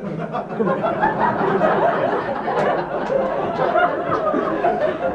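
A live audience laughing together, many voices at once in a steady wash of laughter.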